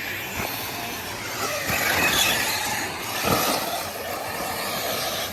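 Radio-controlled off-road cars running on a dirt track, their motors whining up and down, with a louder knock about three seconds in.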